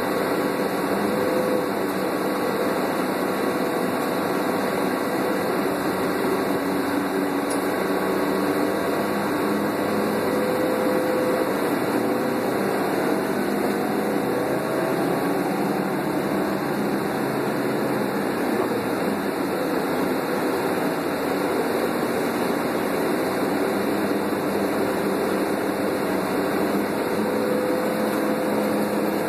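The Doosan CNG engine of a 2001 New Flyer C40LF transit bus running as the bus drives, heard from the rear of the passenger cabin as a steady hum of several tones that drift slightly in pitch over a bed of cabin noise.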